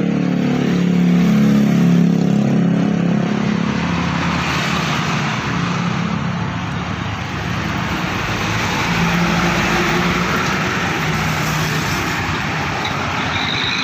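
A motor vehicle's engine running close by, its low hum loudest in the first few seconds, over a steady hiss.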